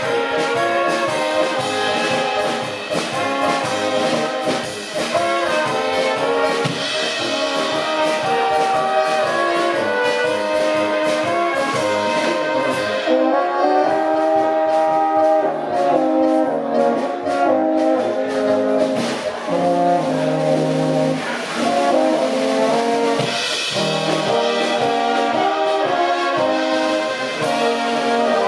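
Small folk brass band playing a tune without pause: trumpets and tenor horns carry the melody over tuba bass notes, with an accordion in the ensemble.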